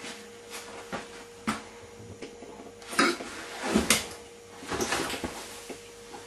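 Kitchen handling noises: a few light knocks in the first two seconds, then louder clattering and rustling about three and four seconds in and again near five seconds, over a faint steady hum.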